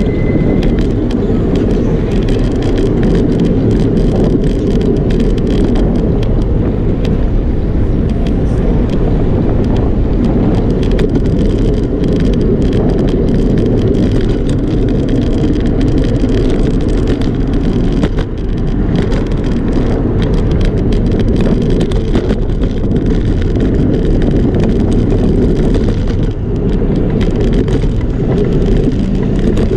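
Steady rushing noise of a moving bicycle ride: wind on the microphone and tyre rumble on the pavement, with many small rattles and clicks from bumps in the path. A short high tone sounds in the first second.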